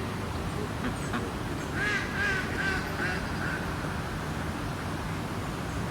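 Black swan calling: a quick series of about five short, high squeaky calls about two seconds in, over a steady background hiss.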